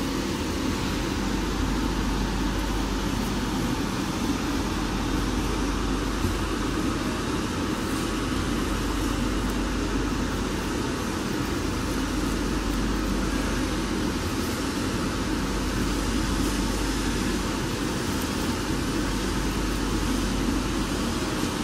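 Shrink-wrapping packaging machinery running steadily: an even whir with a low hum underneath and no breaks.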